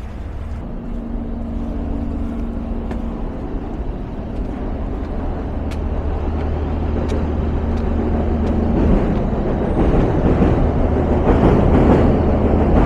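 Steady low rumble of city traffic with a faint engine hum, growing louder over the last few seconds.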